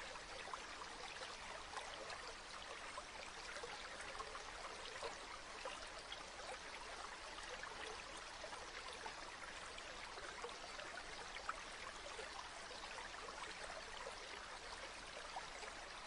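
Faint, steady trickling of running water, like a small stream, with many tiny ticks scattered through it.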